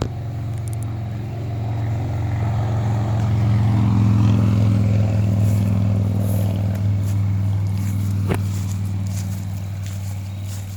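Low engine hum of a passing motor vehicle, swelling to a peak about four seconds in and then slowly fading, with a single sharp click about eight seconds in.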